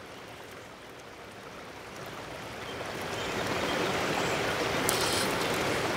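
Stream water flowing over rocks in a small riffle, growing louder from about two seconds in and then holding steady.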